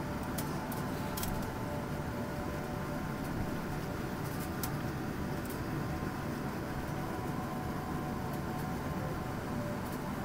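Steady airliner cabin noise while taxiing: the engines' low hum and the air-conditioning rush, with a faint steady whine and a few light ticks.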